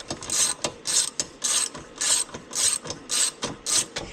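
Hand ratchet wrench being worked back and forth on a bolt of a small go-kart engine, its pawl clicking in short bursts about twice a second.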